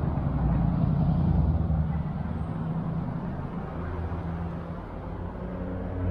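Car driving forward through an intersection: a steady low rumble of engine and road noise that eases off slightly over the few seconds.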